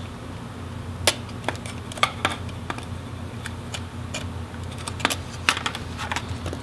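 Irregular small plastic clicks and taps from the Oculus Quest 1's lens assemblies being lifted and pressed back on the headset's plastic frame, over a steady low hum.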